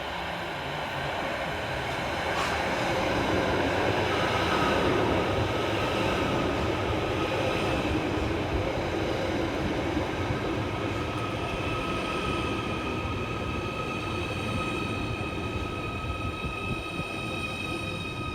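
Two coupled Merseyrail Class 777 electric multiple units pulling into the station. The rolling noise of wheels and running gear builds over the first few seconds. A steady high whine comes in about four seconds in, and a second, higher steady tone joins around eleven seconds and holds as the train draws in.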